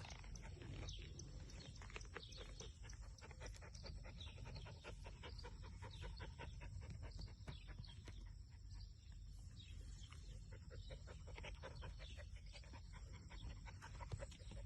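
Faint sounds of a Goldendoodle puppy moving about close by: panting, with irregular soft rustles and crackles throughout.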